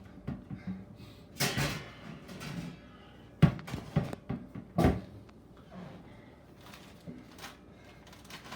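Kitchen clatter from food prep: a short rustle about a second and a half in, then a few sharp knocks and bangs of cupboards or dishes being handled, the loudest three between about three and a half and five seconds in.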